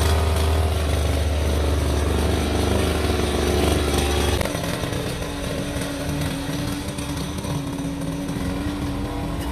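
Backpack brush cutter's small petrol engine running at high speed. It is loud and rough with a heavy low rumble for the first four seconds or so, then quieter, a steady whine.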